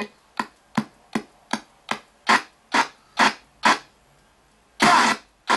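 RTC ghost box sweeping the radio band. It gives short, choppy bursts of radio sound about two or three times a second, with silence between them, and one longer burst near the end.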